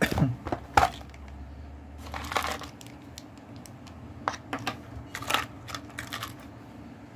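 Hands handling small hard objects and a clear plastic box on a desk: several sharp clicks and knocks, the loudest two in the first second, with a short rustle about two seconds in.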